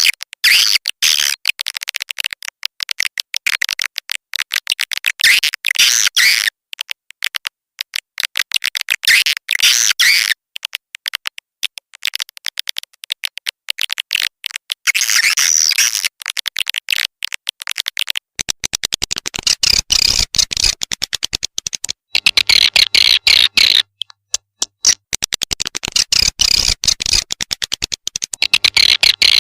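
Swiftlet call recording played as a lure for swiftlet farming: rapid trains of clicks and high twittering chirps, in runs of a few seconds with short breaks between.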